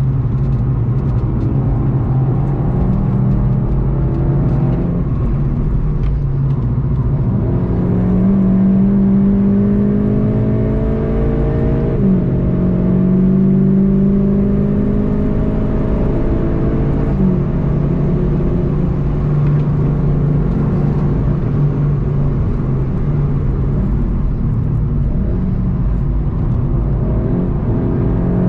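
Turbocharged four-cylinder engine of a VW Golf 7.5 GTI TCR pulling hard at track speed, heard from inside the cabin. Its pitch climbs through each gear and drops at upshifts about 12 and 17 seconds in.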